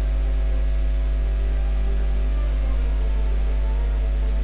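Steady electrical mains hum with a ladder of overtones, unchanging throughout; no stirring or sizzling stands out above it.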